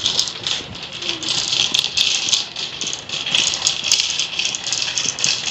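Wire shopping cart rattling steadily as it is pushed along, a continuous dense metallic clatter.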